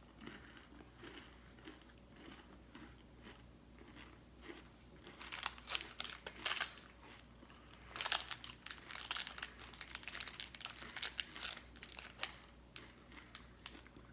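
Crackly crunching in dense bursts, heaviest from about five seconds in to about twelve: a hard, dry bar of stacked cornflakes with a chocolate bottom being bitten and chewed, mixed with crinkling of its wrapper.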